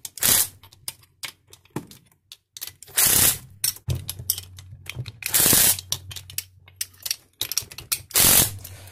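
Cordless impact driver with a socket on an extension running nuts down onto the bolts of a brake actuator's clamped halves. Four short bursts, the longest about half a second, come near the start, about three seconds in, about five seconds in and near the end, with light metallic clicks of parts being handled between them.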